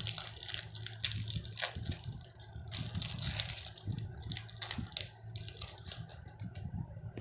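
A Yu-Gi-Oh booster pack wrapper being torn open and crinkled by hand: a continuous run of irregular crackles.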